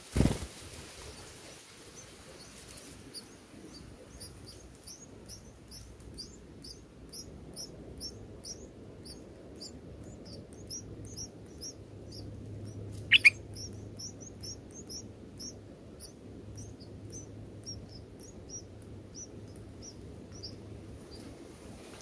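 Red-whiskered bulbul nestlings begging for food: rapid, thin, high-pitched chirps, several a second, starting a few seconds in and stopping near the end. About halfway through, a single louder, sharp rising call cuts through them, and a loud thump comes at the very start.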